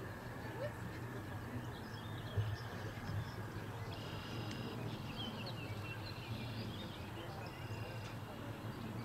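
Steady outdoor background noise with a low hum, and faint high bird chirps about four to eight seconds in.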